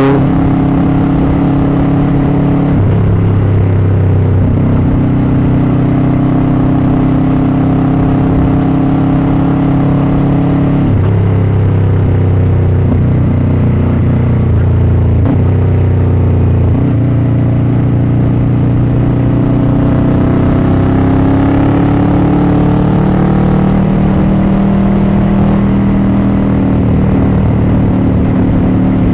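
Motorcycle engine running while riding, its note holding steady and then shifting pitch a few times as the revs change.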